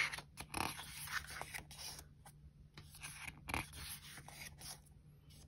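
Pages of a K-pop album photobook being turned and handled: quiet, irregular rustles and scrapes of paper, a little louder at the start and again about three and a half seconds in.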